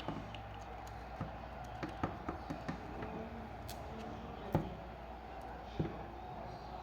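Scattered light taps and clicks of an action figure and its plastic packaging being handled, with a sharper knock about four and a half seconds in, over a steady low hum.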